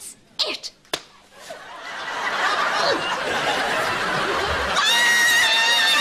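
Audience laughter swelling and holding after a few short sharp bursts in the first second. About five seconds in, a high, wavering held note begins over it.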